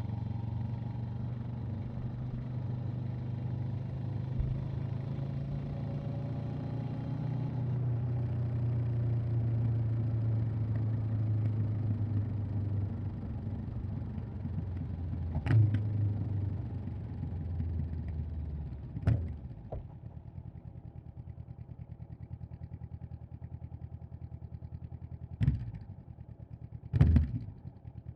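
Honda CB500X's 471 cc parallel-twin engine and exhaust under way, pulling steadily with the pitch creeping up. After two short sharp revs it drops to a quieter, even idle-like beat, with three brief throttle blips near the end.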